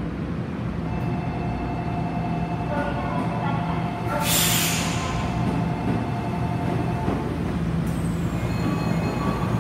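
Tokyo Metro 9000 series subway train pulling away from the station, heard from inside the car. A steady electric whine from the drive comes in as it sets off, a burst of air hiss sounds about four seconds in, and the car's running rumble goes on beneath.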